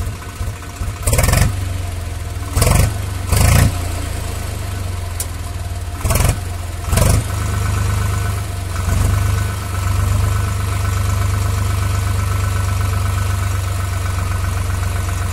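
Tractor engine running steadily, with about five short loud bursts in the first seven seconds.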